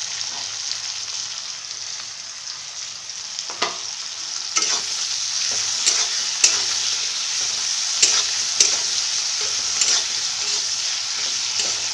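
Sliced onion and capsicum sizzling in hot oil in a pan, with a steady hiss that grows louder about halfway through. A spatula clicks and scrapes against the pan every second or so as the vegetables are stirred.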